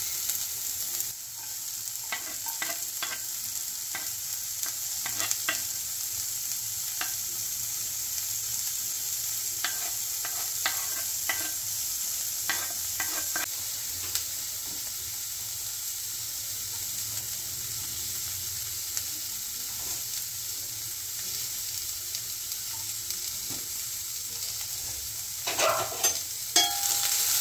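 Chopped carrots and green beans frying in a little oil in a frying pan, a steady sizzle. Now and then a utensil stirring them clicks against the pan, with a cluster of louder knocks near the end.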